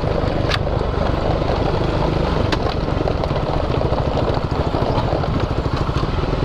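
Off-road vehicle engine running steadily while riding a stony forest track, picked up by a handlebar-mounted action camera, with tyre and wind noise. Two sharp clicks come about half a second in and about two and a half seconds in.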